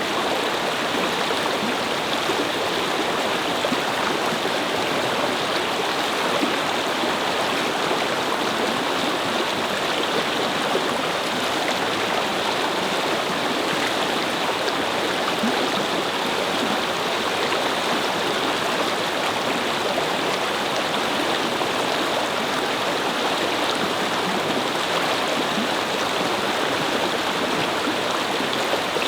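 A brook babbling over stones: steady, even rushing and gurgling of flowing water.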